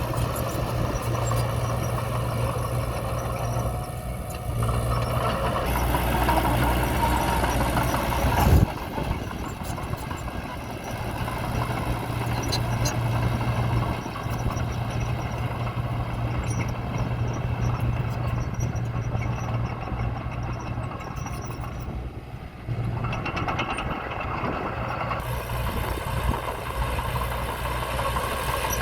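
Diesel engine of heavy earthmoving equipment running steadily at work, with one loud bang about eight and a half seconds in.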